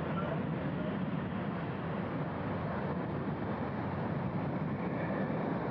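Steady, even jet engine noise from an airliner, with no rise or fall.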